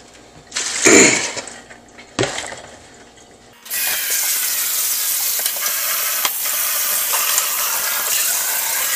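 A couple of knocks as a plastic bowl is handled and set down. About three and a half seconds in, a kitchen faucet starts a steady stream of water over salted cucumber slices in a plastic colander in a stainless steel sink, rinsing off the salt.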